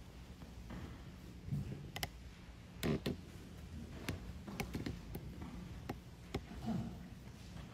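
Scattered light taps and clicks, about seven spread unevenly over several seconds with the loudest a few seconds in, over a steady low hum of room tone.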